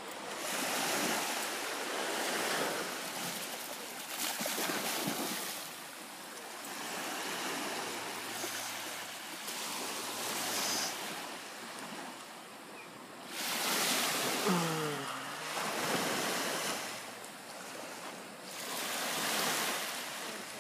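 Small waves washing onto a sandy beach, swelling and falling back every few seconds, with some wind on the microphone.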